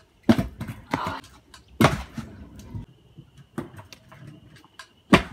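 Stunt scooter hitting concrete steps and pavement: a series of sharp clacks and thuds. The loudest is near the end, a hard landing.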